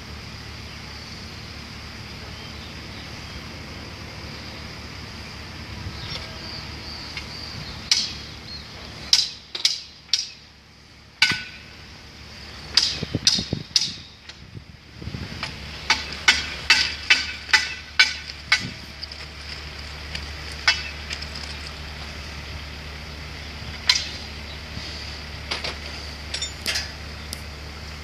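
Sharp metallic taps and clinks with a short ring, scattered and then in a quick run of several strikes in the middle, as metal bracket fittings are worked on at the top of an overhead-line pole. An engine idles steadily underneath.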